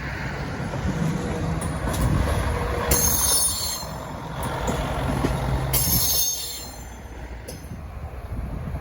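A train rolling by on the rails with a steady low rumble, broken by two bursts of high-pitched steel wheel squeal, one about three seconds in and a second, shorter one about six seconds in.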